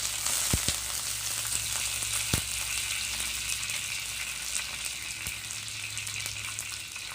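Crushed shallots and curry leaves sizzling in hot oil in a clay pot, a steady frying hiss. Two sharp knocks sound, about half a second in and again about two and a half seconds in.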